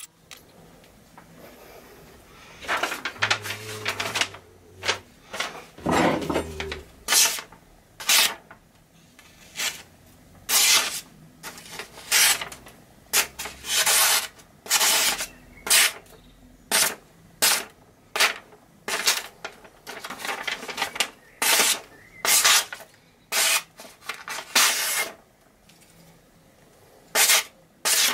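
Knife forged from a railroad spike slicing through a sheet of paper: a series of short, rasping swishes, roughly one or two a second, as strips are cut off to test the edge.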